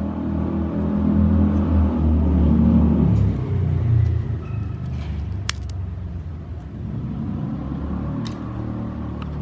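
An engine running with a low, steady hum that rises in pitch about three to four seconds in, with a couple of sharp clicks later on.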